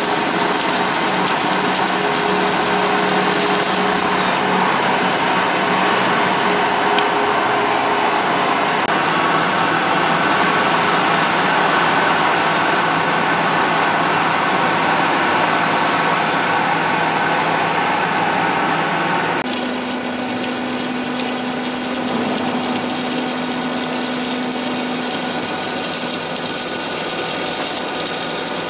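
Steady hiss and machine hum from an automatic GTAW (TIG) pipe-welding station working on carbon steel pipe. The sound changes abruptly about four seconds in and again about twenty seconds in.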